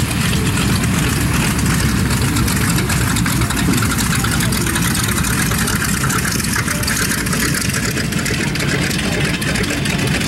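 North American B-25 Mitchell bomber's twin Wright R-2600 radial engines running steadily at low taxi power as the aircraft rolls past.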